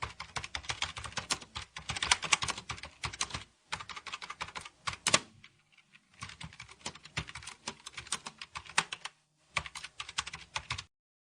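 Computer keyboard typing: rapid runs of key clicks broken by short pauses, with one louder keystroke about five seconds in, stopping abruptly near the end.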